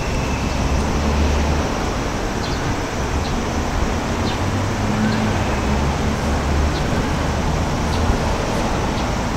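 Wind buffeting the microphone in uneven low rumbles over a steady outdoor hiss.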